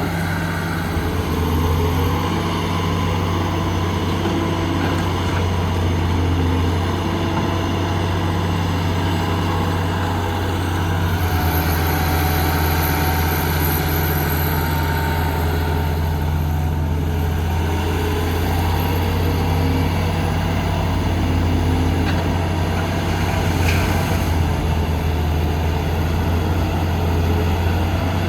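Diesel engine of heavy construction machinery running steadily at a constant speed.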